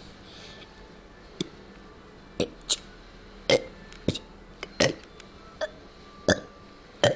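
A person burping the alphabet: about ten short, sharp burps in a row, one for each letter, coming at a little over one a second.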